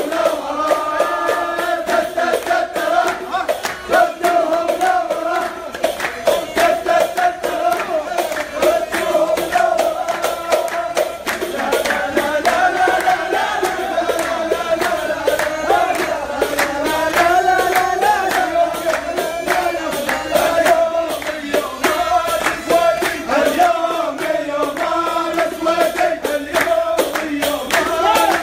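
A group of men singing a celebration chant together in unison, led by one strong voice, with hand clapping throughout.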